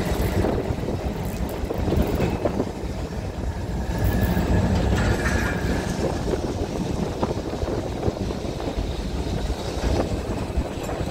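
Open-top Blackpool boat tram running along the track: a steady rumble of wheels and motors, with wind buffeting the microphone. A brief faint whine comes about halfway through.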